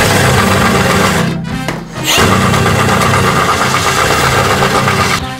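Cordless drill spinning a flexible shaft with a sandpaper flail inside a 6-inch sewer pipe, roughing up the pipe wall before a cured-in-place patch. The drill stops about a second and a half in and spins back up about two seconds in.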